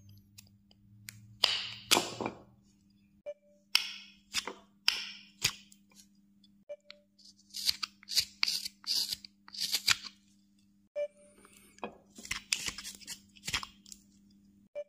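Carving knife slicing into a small wooden figure, taking short paring cuts that shave off curls of wood. The cuts come in several quick clusters of scraping strokes with pauses between them.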